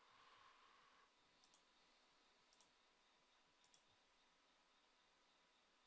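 Faint computer mouse clicks, three quick double clicks about a second apart, in near silence.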